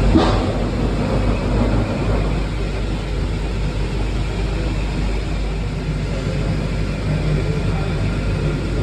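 Steady running noise of a waste-sorting line's machinery, with a constant low hum under an even rushing noise.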